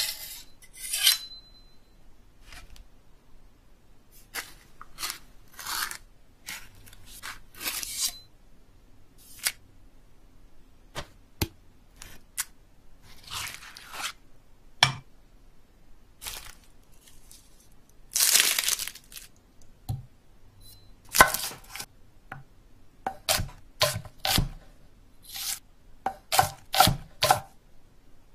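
Kitchen foley. A kitchen knife is drawn in quick strokes across a sharpening stone, then comes a series of separate cutting and scraping sounds, one longer scrape partway through. Near the end the short knocks on a wooden board come closer together.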